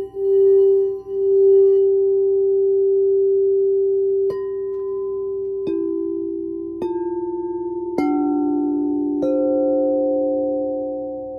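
Frosted quartz crystal singing bowls from a chakra sound-bath set ringing. For the first two seconds one bowl's steady tone swells and dips in level. Then five bowls are struck one after another, about a second apart, each adding a new sustained note that rings on with the others.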